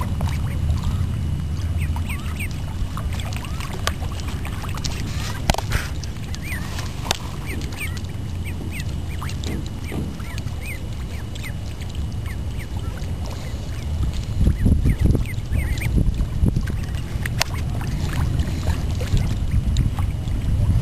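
Mallard ducklings peeping in many short, high chirps, over a steady low rumble that swells briefly past the middle.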